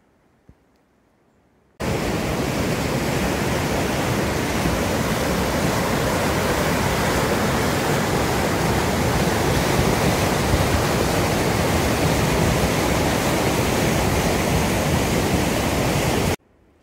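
Whitewater rapids of a mountain river rushing over granite rocks: a loud, steady rush of water that starts about two seconds in and cuts off abruptly near the end.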